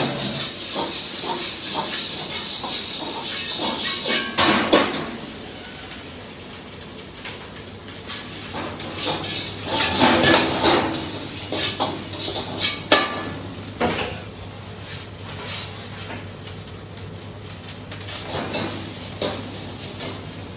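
Stir-frying in a wok on a gas burner: food sizzling while a metal ladle scrapes and clanks against the wok as it is stirred and tossed, with the loudest clanks about four seconds in and again around ten to fourteen seconds. A steady low hum runs underneath.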